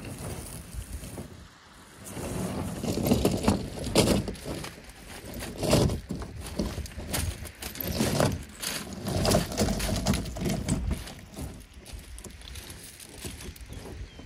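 Pebbles crunching and clattering underfoot as a person walks across a shingle beach hauling a plastic fishing kayak over the stones, in irregular bouts of crunches.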